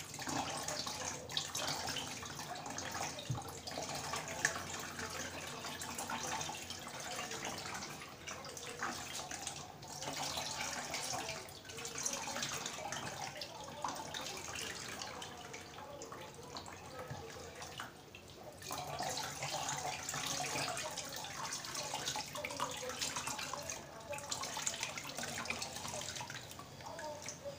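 Liquid cleaner mixture trickling and splashing into a plastic bucket as a soaked straining cloth is squeezed by hand, coming in uneven surges with brief lulls.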